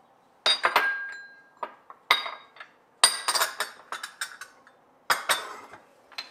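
Ceramic dishes clinking and knocking as a small ceramic bowl is handled over a clay tagine: a run of sharp clinks with brief ringing, in about five bunches, the busiest in the middle.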